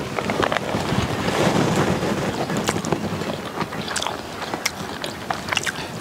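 Wind rumbling on the microphone outdoors, a steady noise with scattered small clicks and ticks over it.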